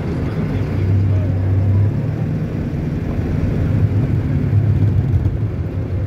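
Street ambience dominated by a motor vehicle's engine running close by: a steady low hum that steps up in pitch about two seconds in.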